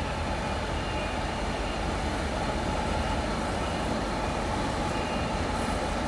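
Taiwan Railway diesel-electric locomotive R155 approaching slowly at the head of a train, its engine giving a steady low rumble that grows slightly louder.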